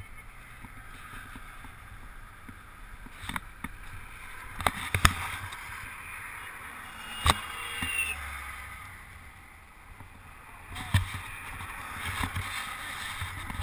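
Steady noise of wind and passing highway traffic on a bridge, heard through a helmet-mounted camera, with several sharp clicks and knocks as a jumper handles his gear against the metal railing.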